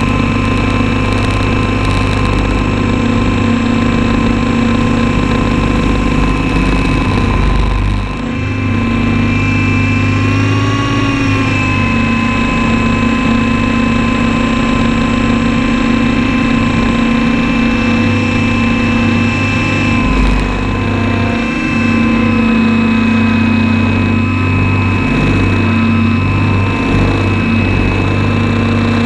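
RC model helicopter's motor running steadily, loud and close through its onboard camera, with a brief rise and fall in pitch about ten seconds in.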